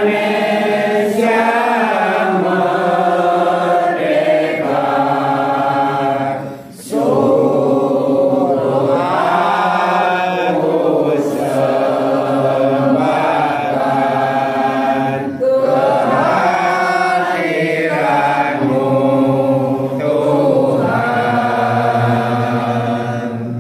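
A mixed group of men and women singing a slow song together in long held phrases, with a short breath break about seven seconds in. The singing tails off near the end.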